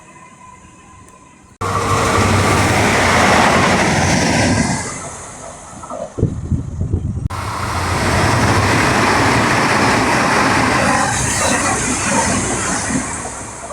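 Train running on the rails: a loud, steady rumble of wheels and track noise that starts abruptly after a quiet second and a half, dips in the middle with a few sharp knocks, cuts back in suddenly, and fades near the end.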